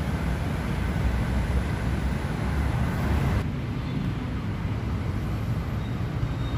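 Steady low outdoor rumble with no distinct events. The higher hiss drops away abruptly about three and a half seconds in.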